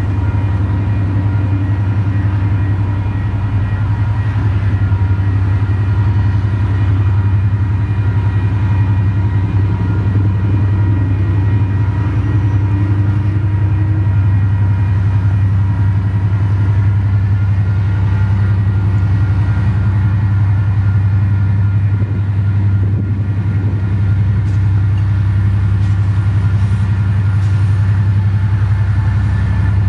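Heavy engine running in a steady low rumble, with several faint, steady whining tones above it and a brief rising tone about halfway through.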